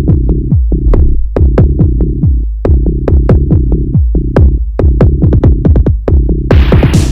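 Electronic dance music: a fast drum-machine beat over a heavy bass line, with a hissing sweep coming in near the end.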